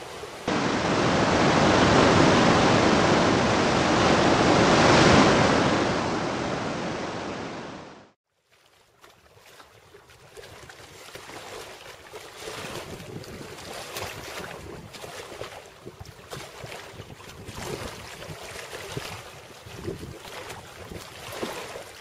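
Loud, steady rushing noise that fades and cuts off about eight seconds in. It is followed by quieter, uneven surf washing over a rocky shore, rising and falling.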